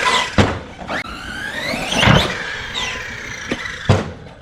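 Brushless electric motor of a Redcat Kaiju EXT RC truck whining up and down in pitch as the throttle is blipped, with about four sharp thumps from the truck hitting the ground.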